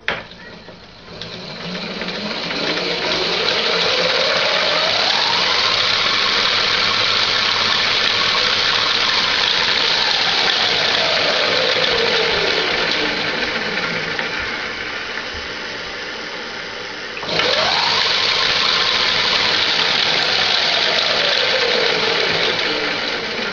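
Electric mini bike's 1 hp DC motor spinning the raised rear wheel through its drive, with a loud rushing noise and a whine that rises over about five seconds, holds, then slowly falls as it winds down. About 17 seconds in it is powered up again abruptly, the whine climbing quickly and then falling away.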